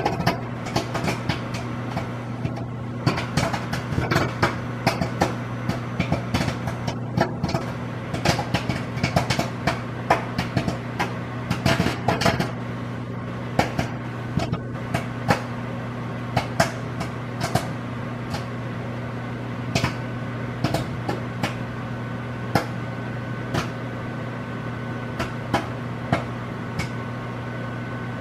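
Popcorn popping inside a running Whirlpool microwave oven: a steady hum under sharp pops that come thick and fast for the first half, then thin out to scattered pops, the sign the batch is nearly done.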